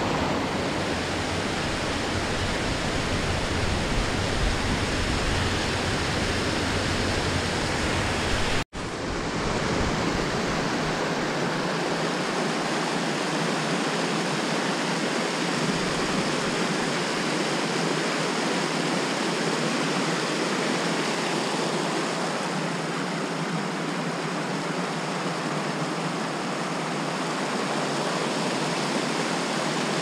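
Mountain stream white water rushing over boulders: a steady, loud rush of falling water. It breaks off for an instant about nine seconds in, then continues as a smaller creek cascade with much less low rumble.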